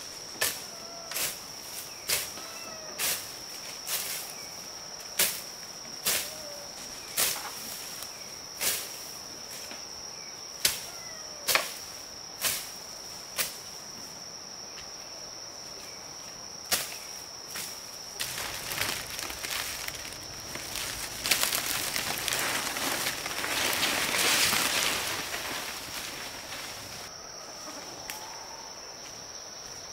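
A run of sharp strikes, about one a second for the first dozen seconds, then a stretch of rustling and brushing about two-thirds of the way through. A steady high-pitched insect drone, like a cricket or cicada, sounds throughout.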